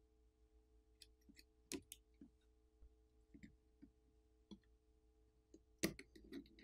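Faint, scattered clicks and taps of small hand tools and phone parts being handled during a smartphone teardown, over a faint steady hum; the loudest click comes near the end, followed by a short cluster of ticks.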